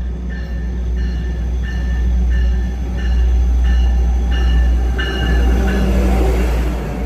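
Amtrak Piedmont passenger train pulling into the station: a deep, steady diesel locomotive rumble with a bell ringing in an even rhythm, about one and a half strikes a second. The bell fades near the end as rail and wheel noise rises.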